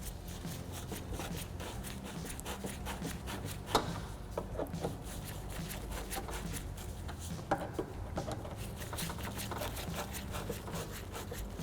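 Faint handling noise and a few small clicks as latch screws are started by hand into a door, over a steady low hum.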